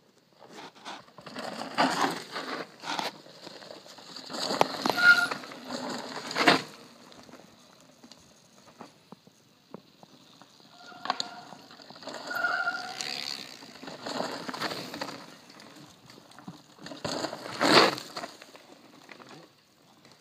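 Mountain bikes passing one after another down a dirt trail over dry leaves: tyres crunching and the bikes rattling, with sharp knocks as they drop over the edge and a few short high squeals. Three passes, the loudest knocks about six seconds in and near the end.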